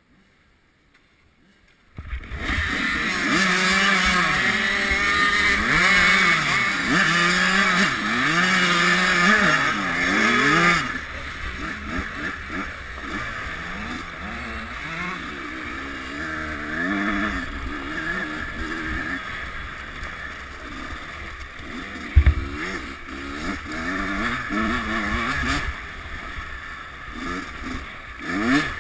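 After a brief near silence, a Kawasaki KX100 two-stroke dirt bike engine and the other bikes around it launch together, revving hard up and down through the gears. The engine sound drops to a lower level as the bike rides on over the snow, and there is a single sharp thump partway through.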